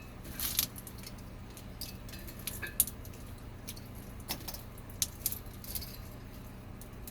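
Scattered light clicks and clinks of hard objects being handled, about eight in all, over a steady low hum: a 3D-printed PLA link chain and weights being set up for a load test.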